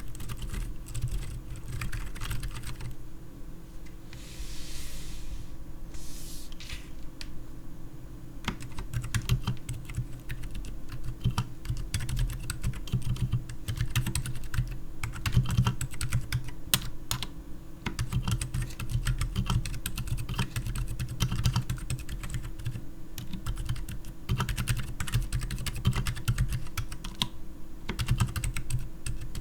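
Steady typing on a Keycool KC84 mechanical keyboard with stock, unlubricated Outemu Silent Forest silent tactile switches under PBT keycaps, keys clacking in a dense, irregular stream. The board has lubed stabilizers and 5 mm foam inside.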